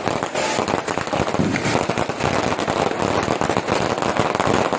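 Fireworks and firecrackers going off in a dense, unbroken string of sharp cracks and pops.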